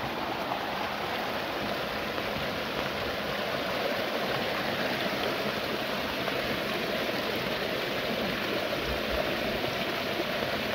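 Muddy rainwater runoff running and splashing steadily down a small eroded gully, a stream of storm water over stones and red earth.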